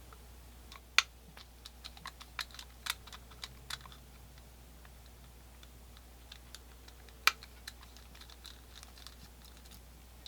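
Small, sharp metal clicks and taps of a screwdriver and small parts being worked while the trigger-bolt spring screw is taken out of a Colt black powder revolver, scattered irregularly, with two louder clicks about a second in and about seven seconds in.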